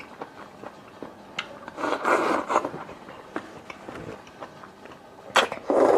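A person eating seafood close to the microphone: wet sucking and slurping at the shellfish, with smaller chewing and lip clicks in between. Two loud slurps come near the end.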